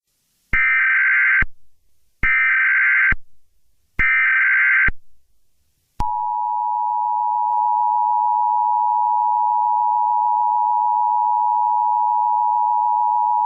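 Emergency Alert System tones. First come three short buzzy data bursts of the SAME header, each about a second long with brief gaps between them. About six seconds in, the steady two-tone EAS attention signal starts and holds.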